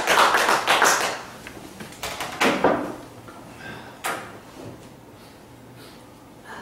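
Audience applause dying away within the first second or so. A few scattered knocks and thuds follow, the sharpest about four seconds in.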